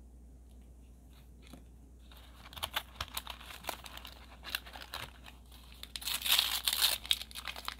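Small plastic and foil wrappers crinkling as fingers rummage through a pile of them, starting about two seconds in, then a plastic packet being torn open near the end, the loudest part.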